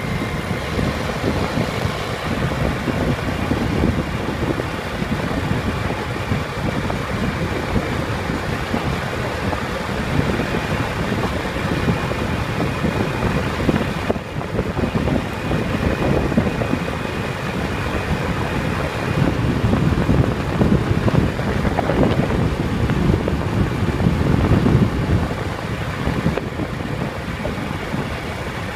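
Steady road noise from a vehicle travelling at highway speed: engine and tyre hum under a gusty low rumble of wind buffeting the microphone, with a faint steady whine on top.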